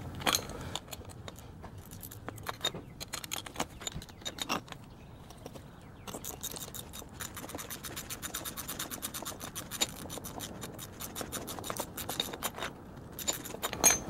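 17 mm ratcheting box wrench clicking as it spins the top nut off a Koni rear shock absorber's shaft: scattered clicks at first, then a fast, steady run of ratchet clicks through the middle, and a louder metal clink near the end.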